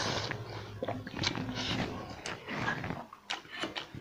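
A person chewing a mouthful of pakhala, rice soaked in water, eaten by hand close to the microphone. There are wet smacking mouth noises with irregular short clicks, growing sparser near the end.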